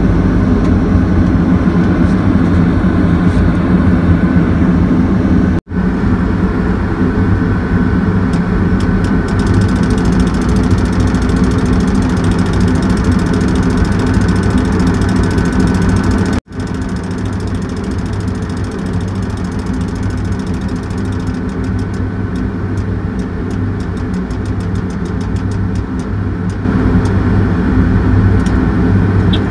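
Large engine of heavy machinery running steadily at a constant speed. The sound breaks off for an instant twice, about six and sixteen seconds in, and is a little louder near the end.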